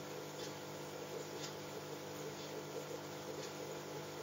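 Quiet room tone: a faint, steady electrical-sounding hum with a light hiss, and no clipper snaps.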